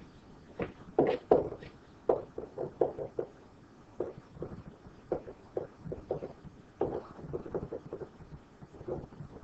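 A series of soft, irregular knocks or taps, up to a few a second, in a small room.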